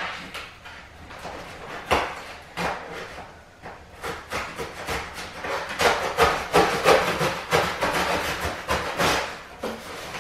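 A large cardboard refrigerator carton being worked open by hand at its top flaps: a run of scraping, tearing and knocking cardboard, with a sharp knock about two seconds in and a busier, louder stretch in the second half.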